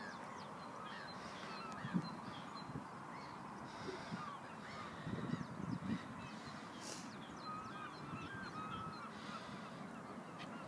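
Many birds calling continuously over flooded marshland, a steady mix of short chirps and calls. A few soft, low thumps come about two seconds in and again around five to six seconds.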